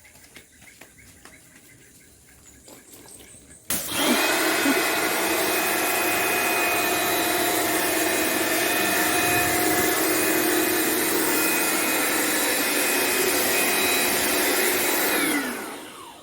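Lakoni Laguna 550-watt electric pressure washer switched on about four seconds in, running with a loud, steady whine. Near the end it is switched off, and its pitch falls as the motor spins down.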